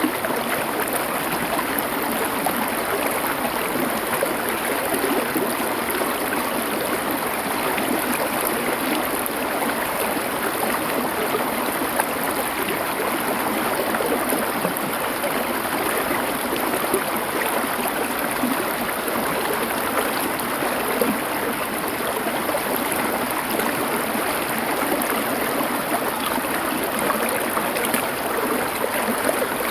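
A small river or stream flowing over stones: a steady rushing of water with fine splashing.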